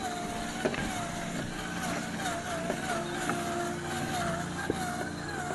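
Traxxas TRX-4 Defender RC truck's electric motor and geared drivetrain whining, the pitch dipping and recovering every half second or so as the throttle is worked, with a few sharp clicks or knocks.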